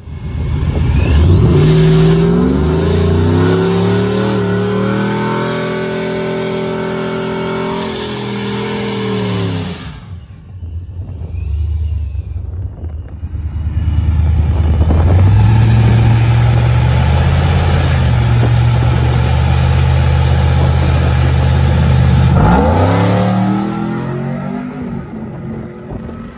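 Pickup truck engine racing on a drag strip. It revs up hard and pulls away, and the note falls off after about ten seconds. Later the engine is held at steady high revs, then climbs sharply as the truck launches and accelerates away near the end.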